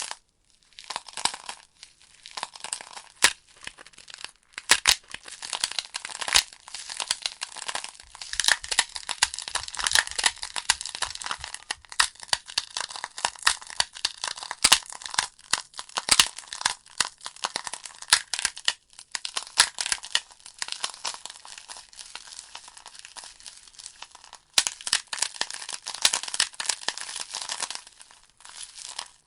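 Logs burning in a fireplace, crackling with a dense run of sharp irregular snaps and pops, thinning out in brief lulls now and then.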